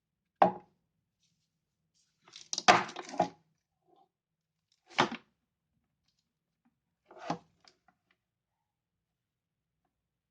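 Objects being handled and set down on a hard surface: four separate knocks and rustles, the busiest a cluster of clatter about two and a half seconds in, with silence between them.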